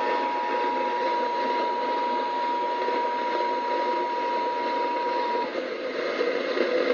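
Emergency Alert System attention signal, a steady two-note tone, heard over a radio broadcast with constant hiss beneath it. The tone cuts off suddenly about five and a half seconds in, leaving only the hiss.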